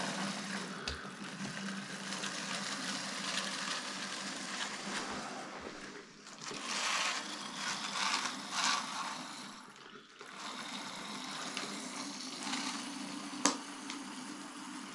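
Water being squeezed out of a hydration bladder through its hose, a rushing, uneven flow that swells louder about six to nine seconds in, with one sharp click near the end.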